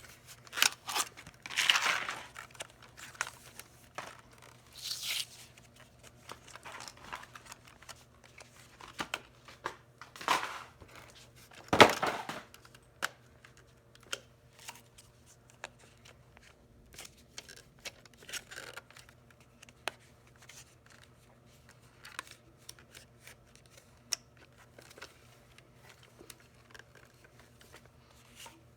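Cardboard and plastic packaging being torn open and handled while unboxing a toy Nerf blaster: scattered rips, crinkling and small clicks, with the loudest rip about twelve seconds in.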